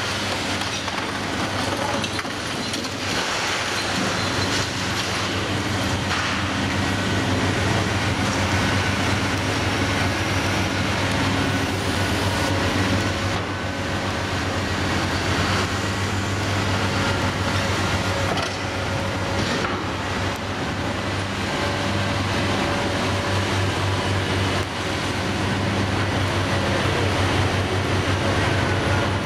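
Hitachi Zaxis 470LCH long-front demolition excavator's diesel engine running steadily under load, with crunching and scraping of concrete as its grapple breaks away a building facade. Thin high squeals come and go over the engine hum.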